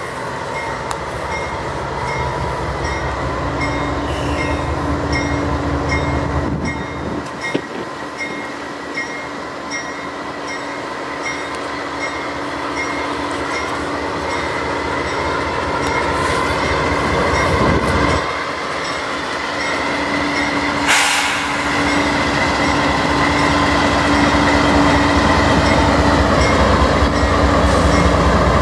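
Several CN diesel-electric locomotives heading a freight train pass close by: engines running and steel wheels rolling on the rails, growing louder as the units come alongside. About two-thirds of the way through there is one sharp metallic clank.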